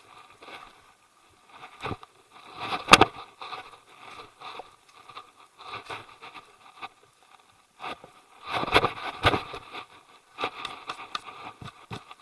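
Footsteps and gear scraping and crackling on a hiking trail, in irregular bursts, with a few sharp knocks about three seconds in and again near nine seconds.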